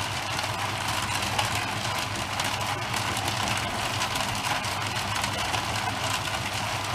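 A steady, unbroken mechanical drone with a low hum, like a small engine or machine running.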